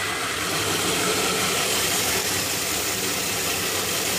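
Monsieur Cuisine Connect food processor's motor and blades running steadily at high speed, whipping eggs and oil into mayonnaise.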